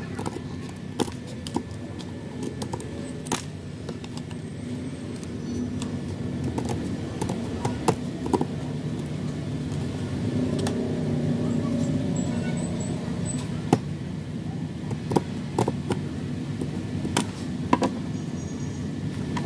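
Scissors cutting through glued wooden ice cream sticks: a dozen or more sharp cracks at irregular intervals as the blades snap through the wood, over a steady low rumble.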